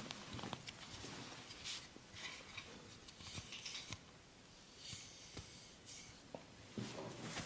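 Hands massaging skin and hair: irregular soft rubbing and scratching strokes, with scattered light taps and clicks.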